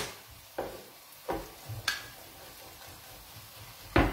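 A few light knocks and clicks of kitchen things handled on the counter: three soft ones in the first two seconds and a sharper knock near the end, as a lemon is juiced into a bowl.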